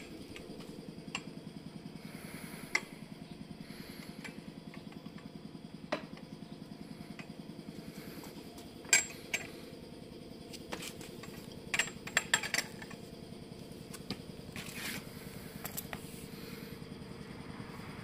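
Scattered sharp metallic clicks and clinks from the red air-hydraulic floor jack and its handle being handled, including a cluster of quick clicks about two-thirds of the way through. Underneath is a steady low mechanical hum.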